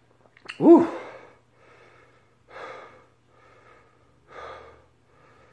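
A man lets out a loud "Woo!" and then breathes heavily in a run of audible breaths, about one a second. It is his reaction to the burn of a chili pepper tincture he has just taken.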